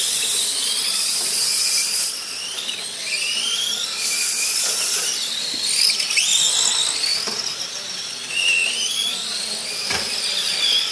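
Electric motors of several radio-controlled semi-trucks whining as they race, their high pitches overlapping and repeatedly rising under acceleration and dropping as they slow; a short knock near the end.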